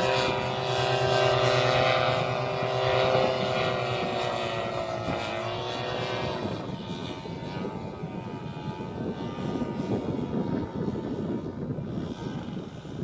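AC Nitro 200 paramotor's two-stroke engine and propeller flying past: a steady engine drone that drops in pitch about five to six seconds in as it passes, then fades away under wind noise.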